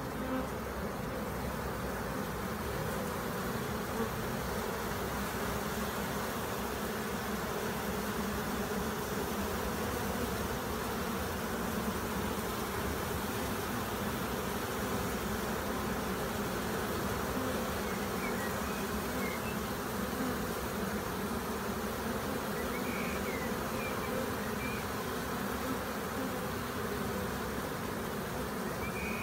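A large swarm of honeybees humming steadily, a dense, even buzz of many bees, as the swarm walks across a sheet into its new hive.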